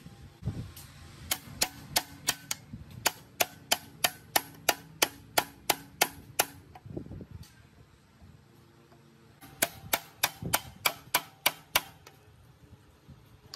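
Sharp, evenly spaced metallic clicks, about three a second, from a hand screwdriver with a hex bit turning rusted screws in a bench drill's steel base. The clicks come in two runs: a long one, then a shorter one after a pause of about three seconds.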